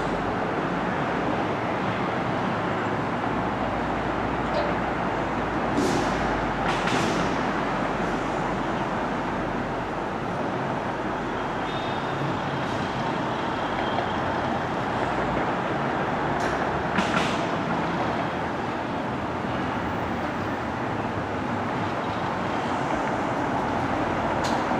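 Steady rumbling noise of a moving vehicle, with a few brief hisses about a quarter and two thirds of the way in.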